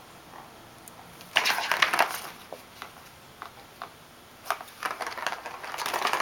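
Green plastic cat track toy clattering and knocking as a kitten paws at it and climbs over it. A loud burst of clicks comes a little over a second in, with scattered ticks after it and more clatter near the end.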